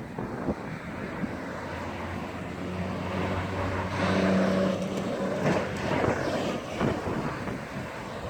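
A motor vehicle's engine hum rising and fading over a few seconds as it passes, loudest about halfway through, with wind rumbling on the microphone.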